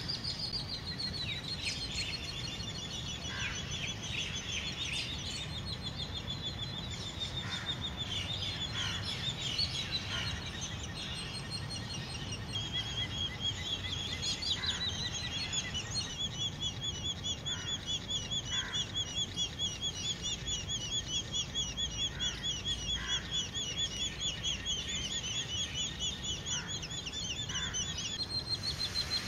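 High-pitched bird calls from an Indian grey hornbill family at the nest, calling to the male hornbill. Varied chirps give way about halfway in to a fast, even trill of many notes a second, with scattered short squeaks, over a steady low background hum.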